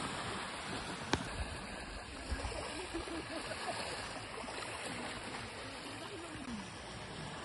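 Steady rushing water noise, with a single sharp click about a second in.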